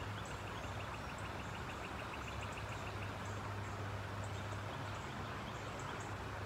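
Riverside outdoor ambience: a steady hiss with a low hum underneath, a fast ticking chirp trill during the first three seconds, and scattered short high chirps.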